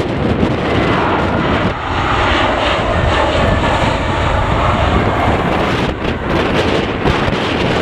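An airliner's engines sound as it passes on approach or landing, rising and then fading over a few seconds. Heavy wind buffets the microphone throughout.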